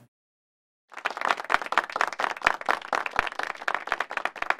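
An audience applauding, many hands clapping together, starting abruptly about a second in after a moment of silence.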